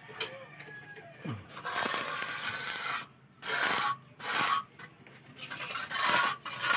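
A mason's hand tool scraping and rubbing over fresh cement render on a concrete door jamb: one long stroke, then several shorter ones, the finishing pass that smooths the jamb surface.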